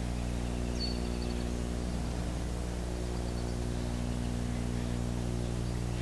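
Steady low electrical hum from the old film soundtrack, with a faint, high bird chirp about a second in that trails off into a few quieter notes, and another faint run of notes a couple of seconds later.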